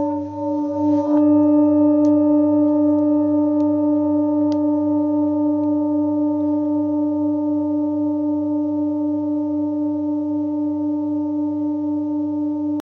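Hand-made seven-metal Himalayan singing bowl, the Sol (G) bowl of a seven-bowl set, ringing on with a long sustained tone after a strike about a second in. The ring wavers slightly, showing the bowl's beating, and fades slowly before cutting off suddenly near the end.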